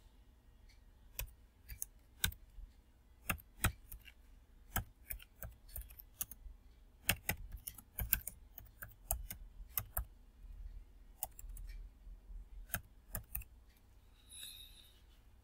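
Computer keyboard keys being typed in short irregular runs of clicks. A brief hiss comes near the end.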